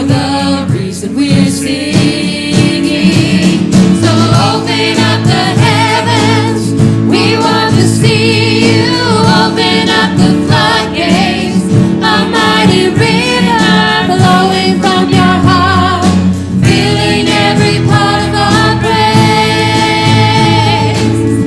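Contemporary worship song: voices singing over sustained accompanying notes.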